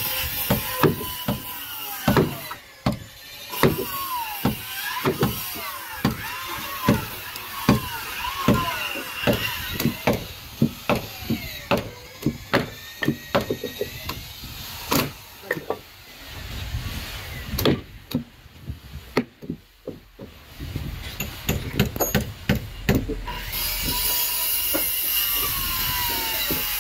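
A heavy wooden mallet knocking wooden wedges into a thick timber plank: a run of sharp wooden knocks, roughly two a second, with a short lull about two-thirds of the way through. A steady noise comes in near the end.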